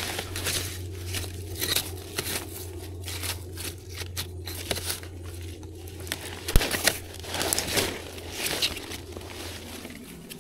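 Leaves and undergrowth rustling and crackling in irregular bursts as gloved hands push through the plants. There is one sharp snap or knock about six and a half seconds in, and a steady low hum underneath that stops near the end.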